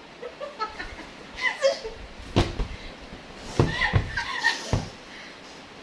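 Short bursts of stifled laughter, broken up by four dull thumps.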